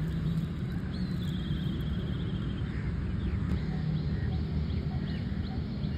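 Outdoor ambience: a steady low rumble under high, thin chirping, a quick falling run of chirps about a second in, then short chirps about three a second through the second half.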